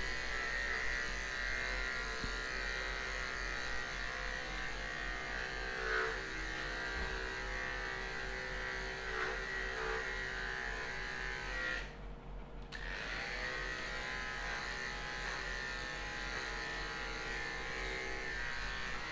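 Corded electric pet clipper running with a steady buzz as it shaves a dog's fur, the buzz dipping briefly about two-thirds of the way through.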